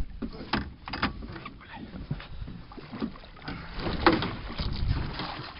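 Water splashing and knocks against the side of an aluminium boat as a large pike is brought into a landing net at the hull, with a stronger flurry of splashing about four seconds in.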